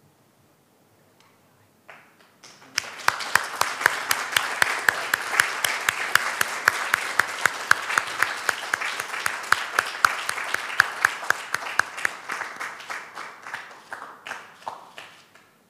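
Audience applauding: a few scattered claps about two seconds in, then full applause with one set of sharp, regular claps standing out at about three a second, thinning out and dying away near the end.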